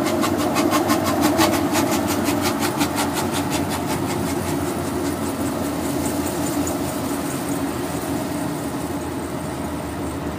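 Inside the cab of a Volvo VNL 670 semi-truck on the move: the diesel engine's steady drone with road noise. Over the first few seconds a rhythmic clatter runs at about six beats a second, then fades away.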